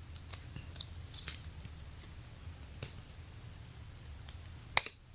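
Small plastic clicks and scrapes of a three-piece hybrid phone case, hard plastic and TPU bumper, being pried apart by hand, with a sharper double click near the end.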